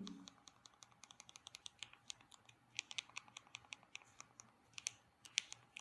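Faint, irregular clicking of keys or buttons being pressed in quick succession while text is typed.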